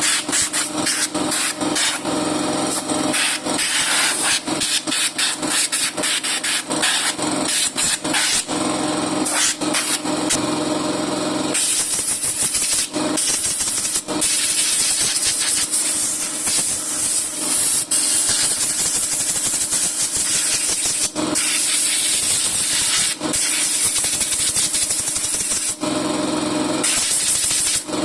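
A hissing spray jet blasting dirt off a car's rear drum brake, in many short bursts for the first ten seconds or so and then in longer steady blasts. It clears the brake dust that the owner blames for the squeak when braking.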